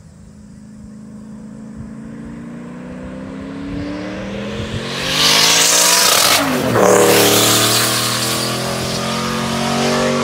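An LS-swapped Pontiac Fiero's V8 engine accelerating hard toward the camera, its pitch climbing as it gets louder. About six and a half seconds in, at its loudest, the pitch drops sharply as the car passes, and the engine keeps pulling loudly as it goes away.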